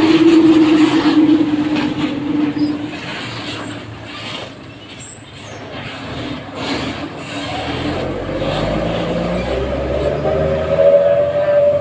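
Heavily loaded dump truck running on a rough, potholed road, with knocks and rattles in the first few seconds. Its engine note falls at first, then a rising whine climbs over the last few seconds over a heavier rumble as it pulls.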